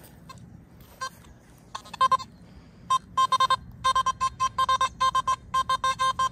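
Metal detector beeping in short tones of one pitch as it picks up a target. There are a few separate beeps at first, then from about three seconds in they come quickly, two or three a second.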